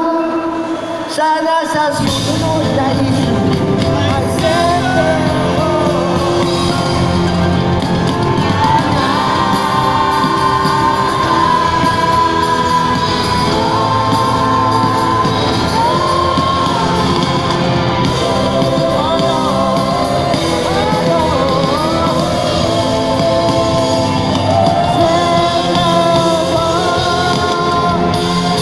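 Live rock band playing: a man singing lead over electric guitars, bass and drums, amplified in a large hall. The bass and drums come in fully about two seconds in.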